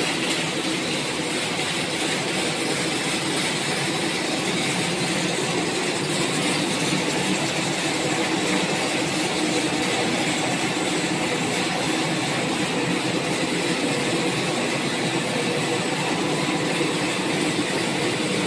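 Cable extrusion line running: a steady, dense mechanical noise from its motors and drives, with a few faint steady hums.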